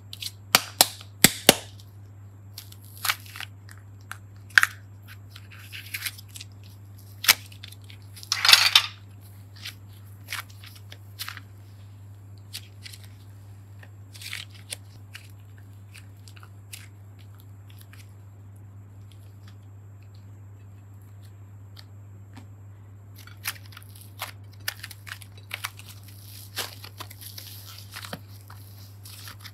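Slime and soft clay being handled, stretched and squeezed by hand, giving sticky clicks and crackles. There are several sharp clicks in the first two seconds, a louder crackling burst about eight seconds in, a quieter stretch, then a run of crackles near the end. A low steady hum runs underneath.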